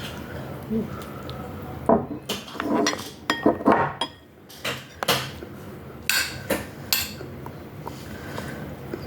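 Cutlery clinking and scraping against a dish while eating, with a quick run of knocks about two to four seconds in and then single clinks a second or so apart.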